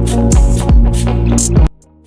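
Loud electronic intro music with a heavy beat and deep falling bass hits, cutting off suddenly near the end.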